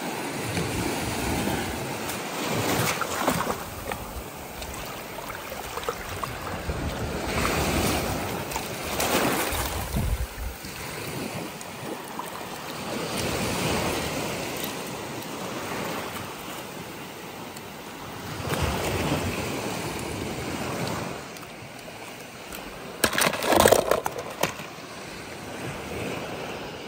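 Water washing in and out in slow swells every few seconds, with wind on the microphone. Near the end there is one brief, louder burst.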